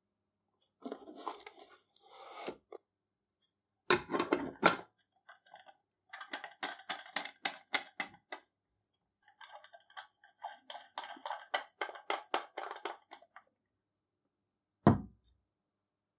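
Hand reassembly of a metal battery lantern: a battery box scraping into the aluminium housing, a loud metal clatter, then two quick runs of metallic clicking as parts are fitted and fastened. A single heavy thump comes near the end.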